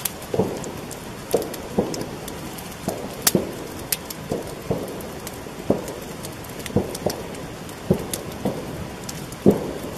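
Campfire crackling: irregular pops and snaps, roughly one or two a second, some dull and some sharp and crisp.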